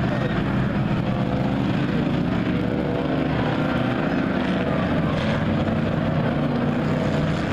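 Engines of a pack of race cars and pickup trucks running together at speed around an oval track, a steady mix of many engines with no single crash or impact.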